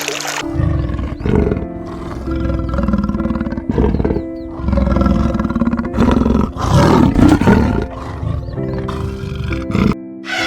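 A large animal's repeated low, rough roaring calls, several in a row, over background music with steady held tones.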